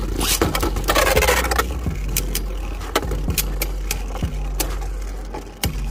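Two Beyblade Burst spinning tops battling in a plastic stadium. A scraping rush runs through the first second and a half, then come repeated sharp clacks as the tops collide and strike the stadium wall.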